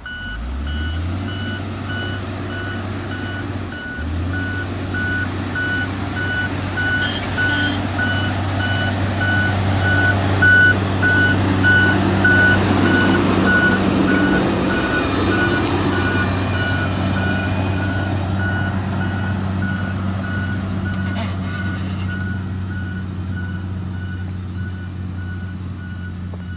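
Diesel engine of a heavy road-construction machine running while it reverses, its backup alarm giving steady repeating beeps. The engine revs up twice early on, and the sound grows louder toward the middle, then eases off as the machine moves away.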